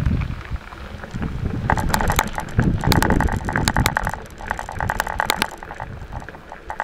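Wheels of the self-balancing Loomo robot and Segway rolling over a gravel driveway: a low rumble with rapid crunching clicks, which thicken from about two seconds in and ease near the end.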